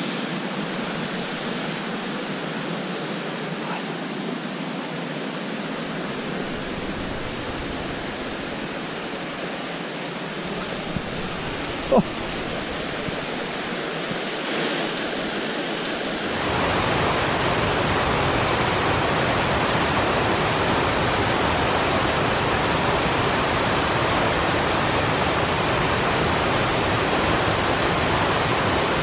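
Rushing mountain river and small waterfalls, a steady roar of water that grows louder and deeper about halfway through. A single sharp click stands out near the middle.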